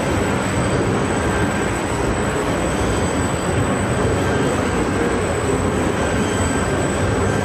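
Steady machinery noise of a car-body production hall, a dense, even rumble with a faint steady high whine over it.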